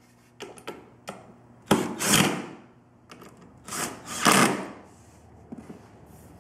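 Cordless drill-driver running in two short bursts, each under a second, driving screws into the pre-drilled holes of a wooden bed-frame strut, with a few light clicks of handling before.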